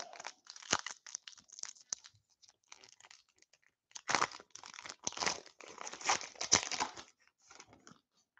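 A trading card pack's shiny foil wrapper being torn open and crinkled by hand, in two bouts of crackling: one about half a second in and a longer one from about four seconds in.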